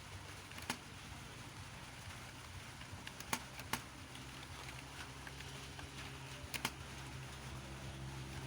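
A few sharp, isolated clicks, two of them close together near the middle and a quick pair later on, over a steady low hum.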